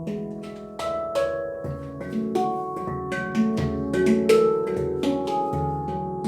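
C# Pygmy handpan played by hand: a flowing run of struck notes, several a second, each ringing on and overlapping the next, with deeper bass notes sounding every second or so beneath the melody.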